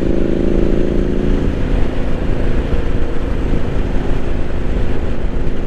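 Triumph Street Scrambler 900's parallel-twin engine running while riding, heard over steady wind rumble on a helmet-mounted microphone. The engine note holds steady for about the first second and a half, then fades under the wind noise.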